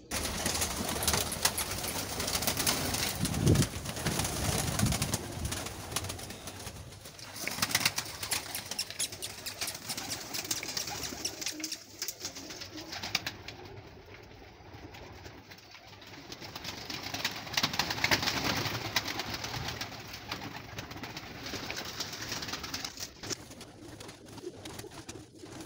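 A flock of domestic pigeons feeding: cooing, a busy patter of pecking clicks and rustling wings, swelling and easing in waves.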